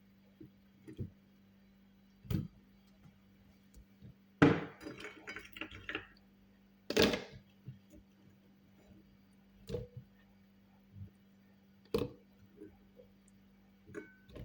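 Pieces of fruit and ginger dropped into a blender jar: scattered knocks and clinks, with a quick run of them about four and a half seconds in and single ones spaced a few seconds apart.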